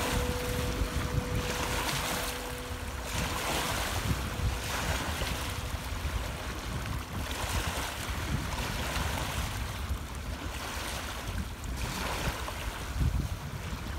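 Small lake waves washing onto a pebble shore in surges every second or two, with strong wind rumbling on the microphone. The last ring of a quartz crystal singing bowl, one pure tone, fades out in the first few seconds.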